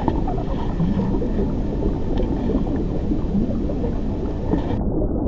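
Underwater sea ambience: a steady, dense low rumbling and gurgling, with faint low glides in pitch running through it.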